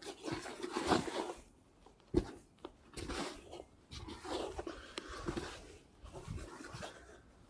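Casting a feeder rod and working the spinning reel: scattered clicks, knocks and rustles of handling.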